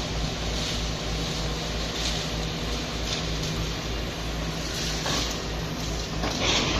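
Diesel engine of a hydraulic excavator running steadily with a low throb and hum during demolition. A louder burst of noise comes near the end.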